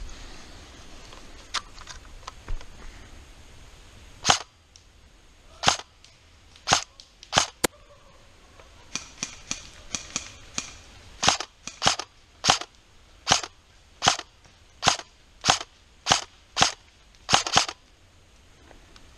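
Airsoft rifle firing single shots, about fifteen sharp cracks spaced roughly one to two a second from about four seconds in, with a run of fainter quick shots in the middle.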